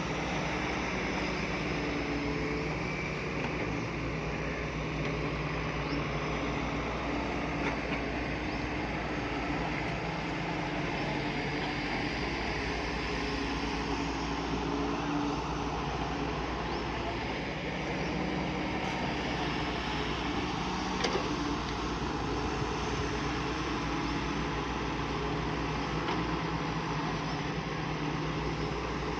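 Diesel engine of heavy earthmoving machinery running steadily under working load, its pitch shifting a little. A single sharp knock about two-thirds of the way through.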